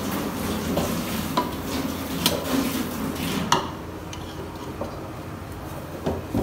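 Metal slotted spoon scraping and scooping cooked rice in an aluminium pot, with a few sharp clinks of the spoon against the pot. The scraping is busiest in the first four seconds, then quieter, with a couple of knocks near the end.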